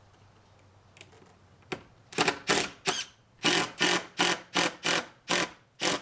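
A hand tool rasping on wood in quick back-and-forth strokes, about ten of them at two to three a second, starting about two seconds in.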